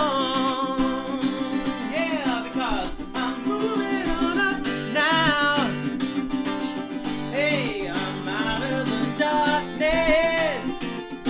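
A man singing a pop-rock song while strumming an acoustic guitar, his held notes wavering between short breaks.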